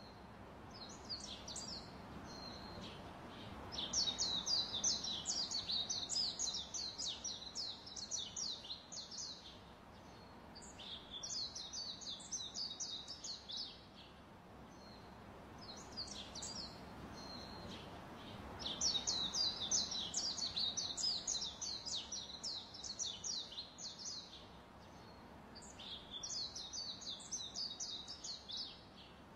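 Birdsong: bursts of rapid, high chirping trills lasting several seconds each over a soft steady hiss. The same run of bursts repeats about halfway through.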